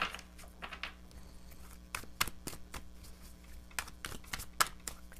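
A deck of tarot cards being shuffled by hand: a run of irregular soft clicks and snaps as the cards slide and strike together, the sharpest one coming a little after halfway.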